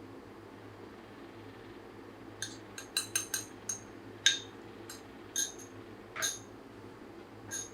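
Cutlery clinking against a dish: about a dozen light, ringing clinks, starting a couple of seconds in and coming irregularly, over a steady low hum.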